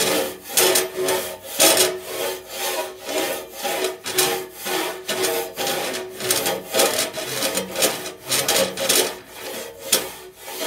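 Long-handled rasp scraping inside a large metal organ pipe in uneven back-and-forth strokes, about two a second, with the pipe ringing along. The harsh scraping is the rasp cutting solder drips off the inside of the pipe.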